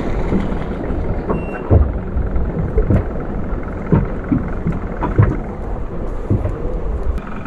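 Steady low rumble with irregular soft thumps, typical of wind buffeting the microphone on a small boat.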